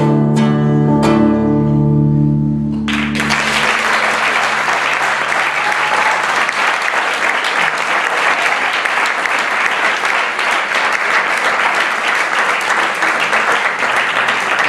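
Nylon-string acoustic guitar plays the last plucked notes and chords of a song, backed by keyboard, and rings out. About three seconds in, an audience breaks into applause that carries on steadily to the end.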